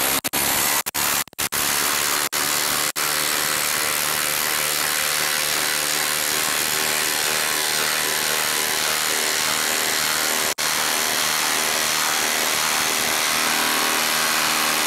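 Cordless Milwaukee impact driver hammering a 5/8-inch by 8-inch screw into a log round. It gives a few short stop-start bursts in the first three seconds, then runs on steadily with one brief break about ten and a half seconds in.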